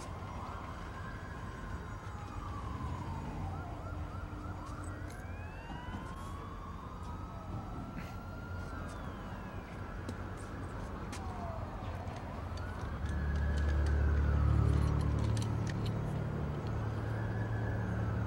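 Several police sirens wail at once, their pitch rising and falling in overlapping sweeps. A deep low rumble swells in about two-thirds of the way through.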